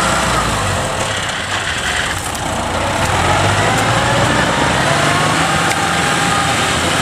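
Engine of a tracked farm carrier, loaded with rice sacks, running steadily as it pulls away along a dirt track, its pitch sliding down and back up.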